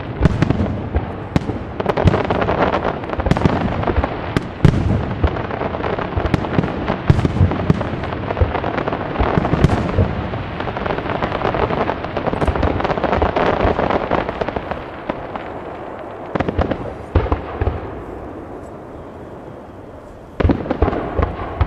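Aerial fireworks display: shells bursting in quick succession over continuous crackling. The bangs thin out and the sound fades for a few seconds near the end, then a fresh cluster of sharp bangs goes off.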